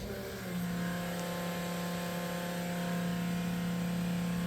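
Electric pump switched on by a dash toggle in a truck, starting up about half a second in and running with a steady hum of a single pitch.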